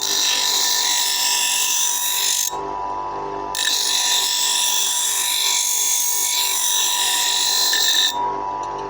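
Bench grinder motor running with a steady hum while a scissor blade is pressed against the wheel twice. Each pass gives a harsh, hissing grind of metal on the stone: the first lasts about two and a half seconds, and after a one-second break the second lasts about four and a half.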